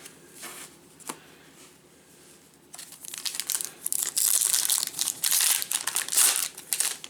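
Foil wrapper of a Bowman baseball card pack crinkling and tearing as the pack is opened, in a dense run of rustling that starts about three seconds in, after a couple of light ticks.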